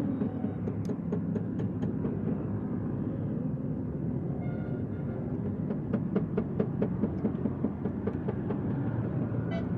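Light metallic knocks and taps of tools working on a car wheel, with a quicker run of them about six seconds in, over a steady low rumble.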